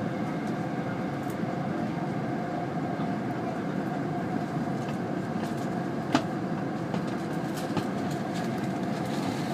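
Steady running noise inside the cabin of an E2-series Shinkansen train: a dense low hum with a few steady tones, and one sharp click about six seconds in.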